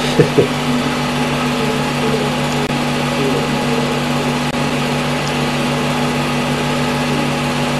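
Steady hum and whir of a small running motor, a constant low drone under an even hiss.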